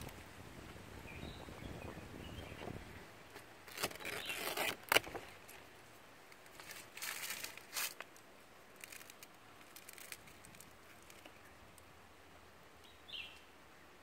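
Irregular rustling and scraping bursts, with a few sharp clicks, as the phone is handled among the banana leaves beside a nest. Quieter outdoor background follows, with one short bird chirp near the end.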